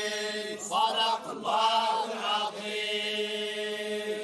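Group of men chanting the Quran together in unison in the Moroccan collective style, holding a long steady note, with a short melodic phrase that rises and falls about a second in before settling back onto the held note.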